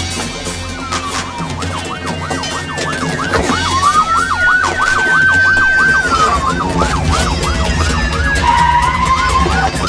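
Police car siren sounding a fast yelp, about three sweeps a second, with a slower wail rising over it near the middle, holding, then falling away. A music bed plays underneath.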